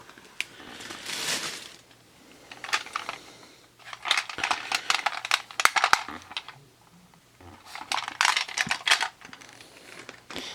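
Small plastic items and their packaging being handled: four bursts of crinkling and light clicking, the longest in the middle.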